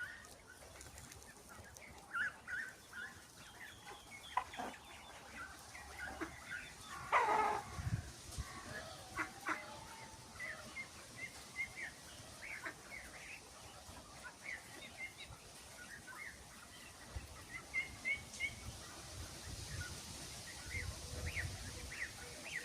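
Australorp chickens clucking: many short calls scattered throughout, with one louder call about seven seconds in.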